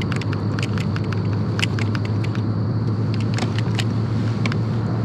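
Baitcasting reel cranked in short turns while a topwater frog is walked, giving irregular sharp clicks and ticks a few times a second over a steady low hum.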